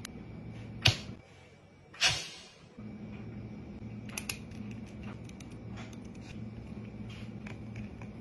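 A pen tapping and scratching on a spiral notebook, with sharp clicks about one and two seconds in and small ticks around the fourth second, over a low steady hum.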